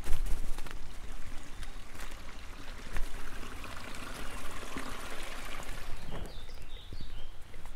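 Single-wheel hiking cart rolling over a rocky trail and a wooden plank footbridge, its frame and mounted camera rattling with scattered knocks and a low rumble. The rush of flowing water swells in the middle, around the bridge crossing, and fades again.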